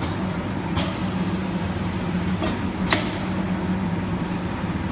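A fully automatic CTO carbon block filter packing machine running with a steady mechanical hum. A few sharp clacks from its moving parts come through, the loudest about three seconds in.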